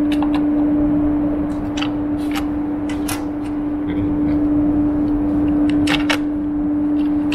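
Clicks and knocks of hands fiddling with a crane's pushbutton and key-switch control box, scattered and irregular, over a steady low hum.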